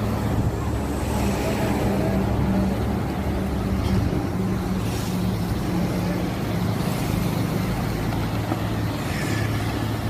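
Engine of a truck-mounted microsurfacing machine running steadily with a low, even hum, with road traffic passing alongside.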